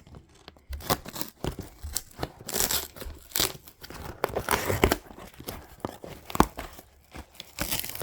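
A postal box of records being torn open by hand: packaging tearing and crinkling in irregular bursts, with short sharp cracks.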